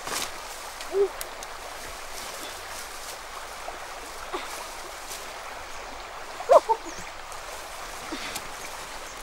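Shallow stream running steadily, with brief pitched chirps about a second in and near six and a half seconds, the later ones the loudest.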